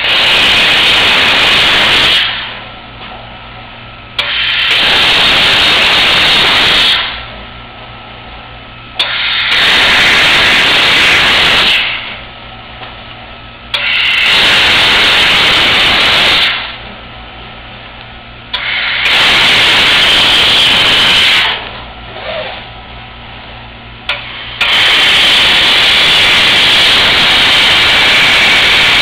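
CO2 laser cutting head of a 5-axis laser cutting system cutting a formed sheet-metal part: a loud hiss of assist gas and cutting that comes on for two to three seconds at a time, about six times, with short quieter pauses between cuts over a steady low machine hum.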